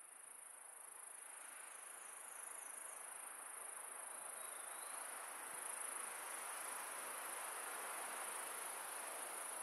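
Insects trilling steadily and high-pitched, over wind rushing through the trees that slowly grows louder.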